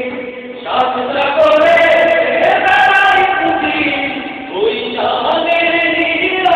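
A group of men singing a Bengali song together, holding long notes, with brief breaks between phrases about half a second in and again about four and a half seconds in.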